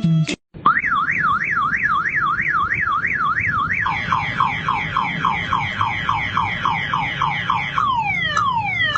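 Motorbike anti-theft alarm siren cycling through its tones. It starts with a rising-and-falling warble about two and a half times a second, switches about four seconds in to a fast run of falling chirps, and near the end to slower falling sweeps.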